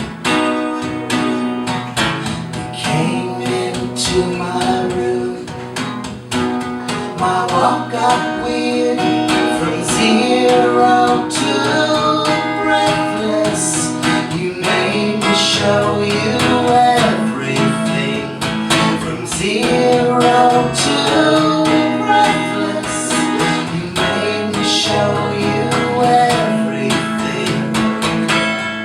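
Acoustic guitar strummed and picked, with singing over it.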